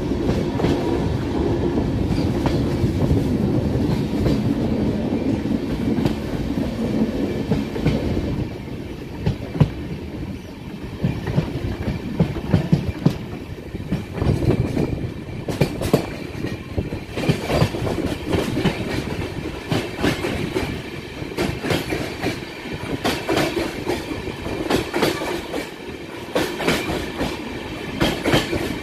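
Passenger train running on the Sakleshpur ghat line, heard from aboard: a steady rumble of wheels on the rails, with sharper clacks and knocks coming through from about nine seconds in.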